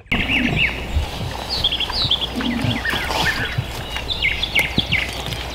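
Wild songbirds chirping and calling in many short, high notes that rise and fall, over a steady low outdoor background rumble.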